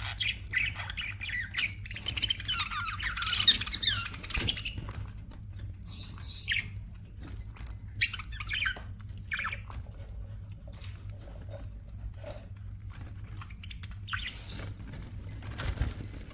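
Budgerigars chirping and chattering in short warbling calls, busiest in the first few seconds and then more scattered, over a steady low hum.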